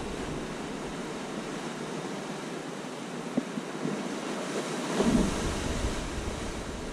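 Ocean surf breaking and washing over rocks, a steady rushing mixed with wind on the microphone. It swells louder about five seconds in.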